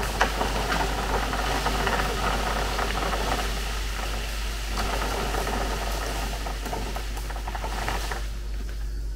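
Leafy branches of a fallen tree being dragged across a bitumen road, a dense rustling and crackling of leaves and twigs that dies away near the end, over a steady low hum.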